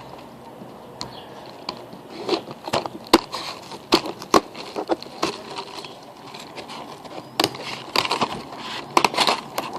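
A small cardboard candy box being torn open and handled: irregular crackling, tearing and sharp clicks.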